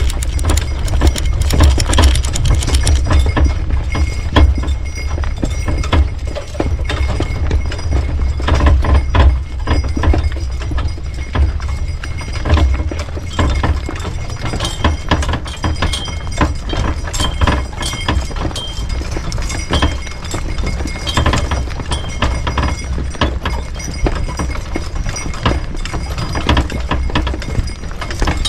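Hooves of a driven two-horse team clip-clopping, with many irregular knocks and rattles over a steady low rumble.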